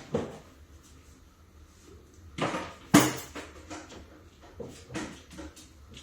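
A handful of knocks and clunks, as of household objects being handled, with the sharpest and loudest knock about three seconds in.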